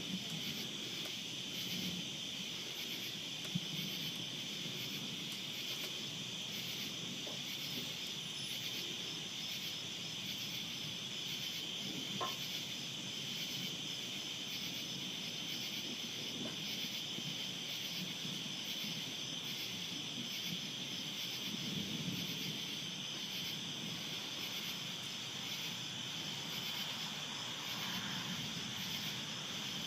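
Steady chorus of night-singing insects: a continuous high trill with a higher layer pulsing about once a second. No thunder is heard.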